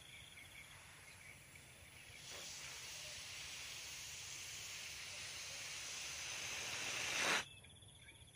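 Air hissing out of the neck of an inflated balloon as it deflates. The hiss starts about two seconds in, grows louder, and stops abruptly near the end as the balloon empties.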